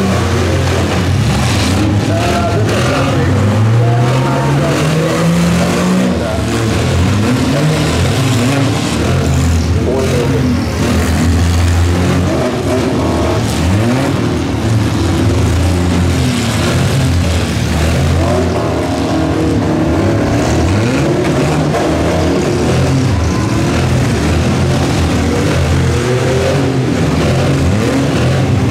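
Engines of several demolition derby trucks and vans revving up and down over one another as they drive and ram in the arena, loud throughout.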